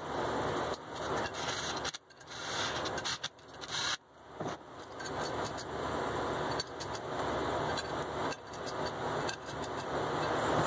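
Hands rubbing and scraping as a gasket is pressed and slid into place on a cast steering knuckle's flange, with short breaks about two and four seconds in.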